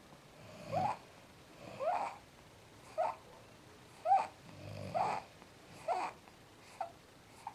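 Two sleepers snoring: a baby's short, squeaky, rising snore about once a second, and a man's deeper, slower snore every few seconds beneath it.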